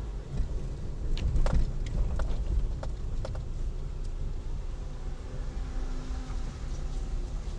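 Car driving, with a steady low rumble from engine and road. Several sharp knocks and rattles come between about one and three and a half seconds in.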